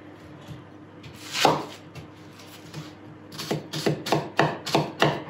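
Kitchen knife dicing an onion on a wooden end-grain cutting board: a single chop, then from about three seconds in a quick, even run of knife strokes on the board, about three a second.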